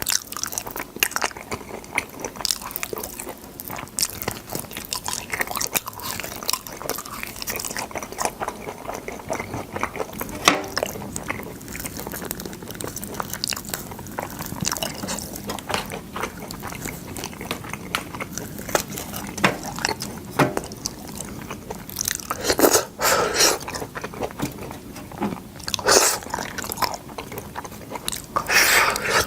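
Close-miked biting and chewing of boiled sword bean pods: many small crunchy clicks, with a few louder, longer crunches near the end.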